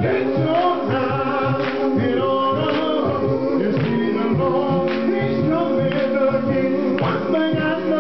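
Gospel choir singing: a male lead singer on a microphone over a men's choir holding sustained chords, with a steady beat about once a second.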